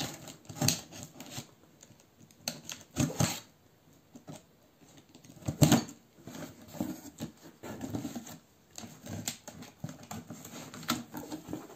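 Hands working at a cardboard box sealed with plastic packing tape: scratching and picking at the tape, tape pulling loose and cardboard rubbing, in irregular short scrapes and clicks, the sharpest a little before halfway.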